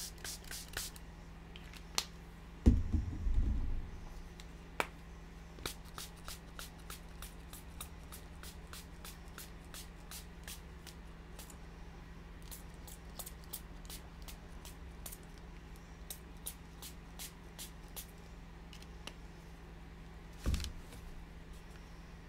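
Scattered small clicks and taps of hands working at a tabletop with a paper towel, with a dull thump about three seconds in and another near the end.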